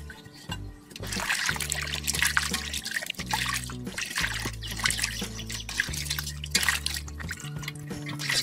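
Water sloshing and splashing in a metal bowl as a plucked chicken is washed by hand, over background music with held low bass notes.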